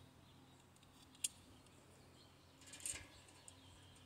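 Very faint handling sounds: one sharp light click about a second in and a short scrape near three seconds, as small parts of a stainless-steel box camping stove are fitted together by hand.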